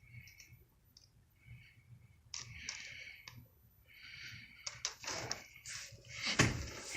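Ceiling fan and its fittings clicking and rattling: faint ticks about every second and a half at first, then louder rattling and clicks from about two seconds in, with a sharp knock near the end.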